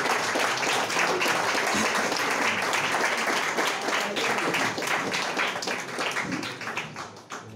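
Audience applauding: many hands clapping at a steady level, dying away near the end.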